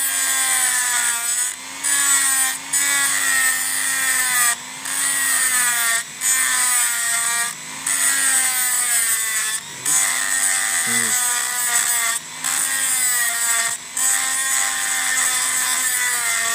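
Handheld rotary tool grinding down the pickup trigger tab on a Suzuki Shogun's steel flywheel magneto rotor: a high whine that wavers in pitch as the bit bites into the metal, with a harsh grinding hiss. The cutting breaks off briefly every second or two as the bit is lifted and set back on.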